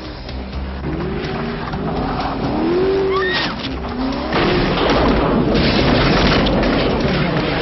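Aston Martin V8 Volante's engine revving up and down, its tyres skidding and squealing on ice, getting louder and noisier about halfway through. A woman shrieks briefly near the middle.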